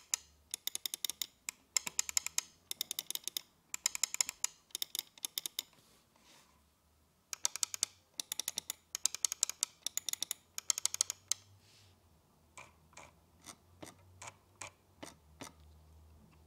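Optical mouse-button switches clicking in rapid runs of sharp, loud clicks, about one run a second: the noisy Titan optical switches of a Roccat Burst Pro gaming mouse. After a short pause about twelve seconds in, a slower series of fainter, duller clicks follows.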